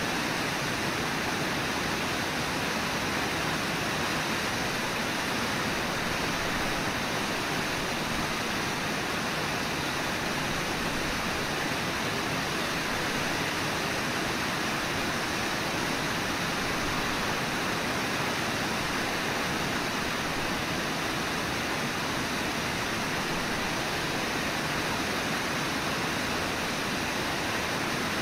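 Steady rushing of river water, an even hiss with no distinct splashes or calls.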